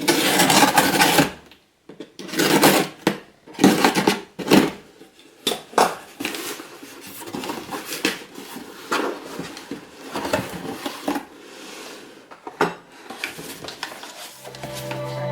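Objects being handled and set down: irregular clattering and rustling, heaviest in the first few seconds and lighter after. Music comes in near the end.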